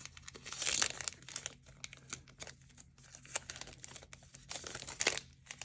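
Plastic booster pack wrapper crinkling and tearing open as it is handled, in irregular crackling rustles with a couple of louder bursts.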